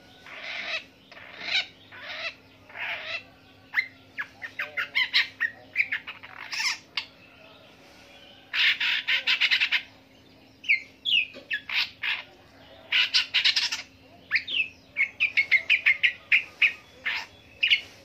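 Long-tailed shrike singing a varied song: harsh repeated calls, fast runs of short notes, dense chattering bursts and whistled slurs.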